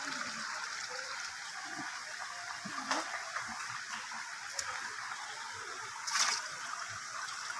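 Steady trickle of running water, with a few small knocks and a louder splash about six seconds in as a dip net of fish is emptied into a plastic bucket.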